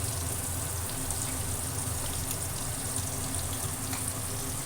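Fish pieces frying in hot mustard oil in a kadai, a steady sizzle with fine crackling.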